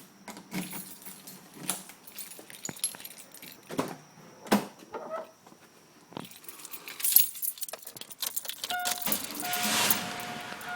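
Car keys jangling and clicking as they are handled, then near the end a steady electronic chime with gaps over a rising rush of noise as the 1996 Buick Skylark's 3100 V6 is started.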